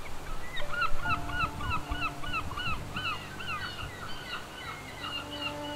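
A flock of birds calling over and over, many short honking calls overlapping, with a few long held low notes of background music beneath from about a second in.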